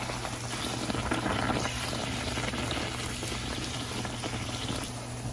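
Bhatura deep-frying in a pan of hot oil, the oil sizzling and bubbling steadily around the dough.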